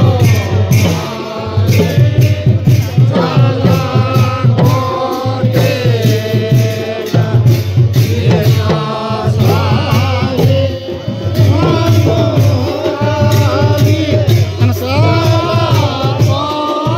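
A group of men singing a devotional chant together, their voices rising and falling in one melody, with drums beating underneath.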